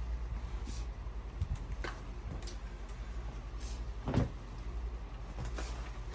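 Hands sorting through loose potting soil and potatoes: scattered light scuffs and knocks, with one louder thud about four seconds in, over a steady low hum.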